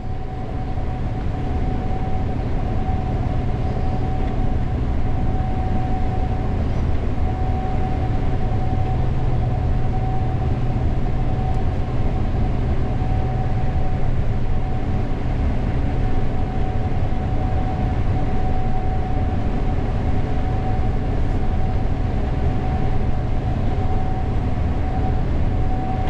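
Gleaner S98 combine running steadily, heard from the cab: a constant low drone from the engine and threshing machinery with a thin steady whine above it.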